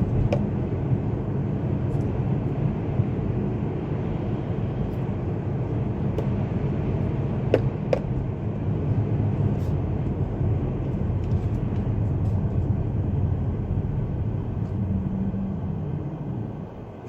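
Steady road and engine noise heard from inside a moving car, with a few faint clicks; it dips briefly near the end.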